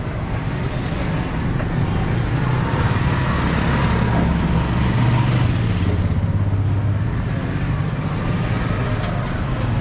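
Street traffic, with a motor vehicle engine running close by; its low hum grows louder about three seconds in and eases off after about seven seconds.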